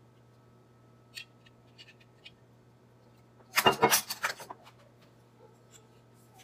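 Metal measuring spoons set down on a wooden cutting board: a quick cluster of clinks and knocks about three and a half seconds in, after a few faint clicks. A low steady hum runs underneath.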